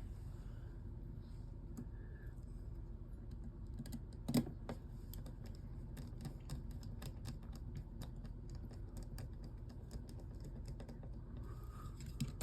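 Small clicks and taps of a screwdriver and tiny screws on a Samsung Galaxy S9's frame during reassembly, with one louder knock about four seconds in.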